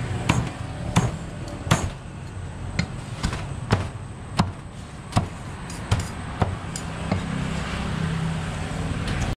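A cleaver chopping roasted duck on a thick round chopping block: about a dozen sharp chops, roughly one every 0.7 s, thinning out after about seven seconds. A steady low hum runs underneath.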